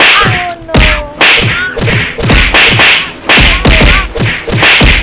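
A rapid run of cartoon beating sound effects: slaps and whacks repeated about two to three times a second, a comic thrashing, with a few short vocal sounds between the blows.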